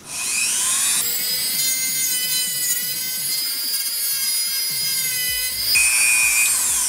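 Wen corded rotary tool with a cutoff wheel spinning up with a rising whine, then running at a steady high-pitched whine. Near the end it gets louder and drops in pitch as the wheel bites into a thin strip of wood and the tool is loaded.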